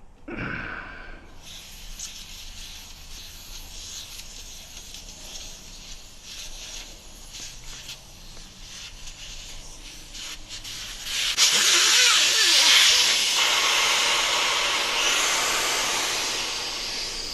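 Air hissing out of a motorcycle tire through its valve stem with the valve core removed: the tire is being deflated. The hiss grows much louder about eleven seconds in, then slowly tapers off.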